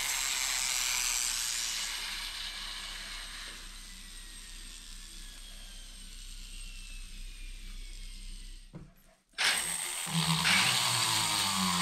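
Handheld rotary tool running, then slowly winding down with a falling whine. After a short break it runs again with a sanding drum grinding against the wooden sword grip.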